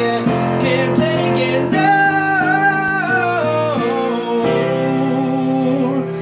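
Acoustic guitar played live with a voice singing a held, wavering line without clear words.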